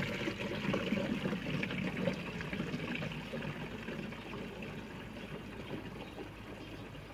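Water running from the tap of a metal water tank into an orange plastic jerrycan as it fills. The flow is a steady pouring noise that slowly grows quieter over the last few seconds.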